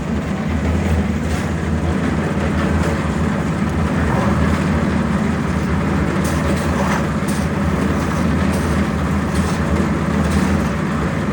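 Portable concrete mixer's engine running steadily with a low hum while the drum turns, with a few faint light knocks in the second half.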